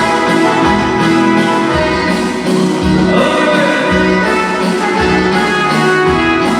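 Loud music: sustained instrumental chords over a bass note that pulses about once a second.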